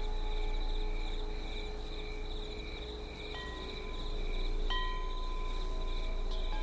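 Wind chimes ringing, their metallic tones hanging on, with fresh strikes about three and a half and nearly five seconds in. Under them runs a steady, fast-pulsing trill of night insects.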